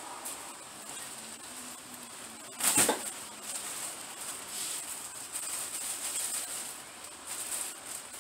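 A single short, sharp noise about three seconds in, over a steady faint hiss.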